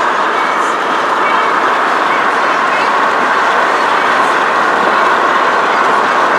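Steady rushing wind and road noise from a car driving at speed with its side window open.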